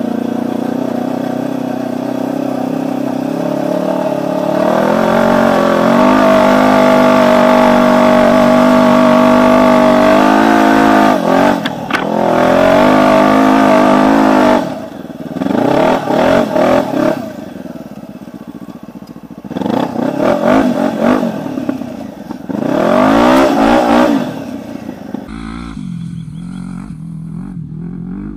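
Quad bike engine heard from the machine itself, pulling steadily and climbing in pitch under throttle, then revved in several short surges that rise and fall. Near the end the engine drops much quieter.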